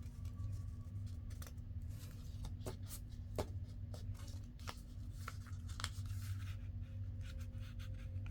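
Paper and cardstock rustling and scraping as paper tags and inserts are pushed into tight-fitting paper pockets, with scattered light taps and slides, over a low steady hum.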